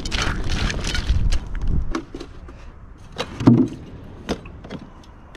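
Hickory wood chips rattling and shifting in a plastic bowl as hands work through them, over a low rumble. Then, after about two seconds, a few separate knocks and clunks as a plastic chilly bin's lid is opened and its contents handled.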